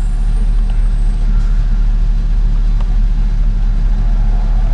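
Steady low rumble of road and drive noise inside a moving car, a 1978 Porsche Carrera converted to electric drive, with no engine running.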